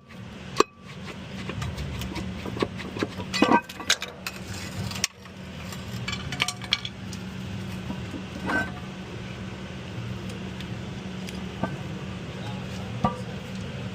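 Metal tools and parts clanking and knocking during work on a semi truck's clutch, over a steady low hum. There are scattered sharp knocks, with a cluster of them a few seconds in.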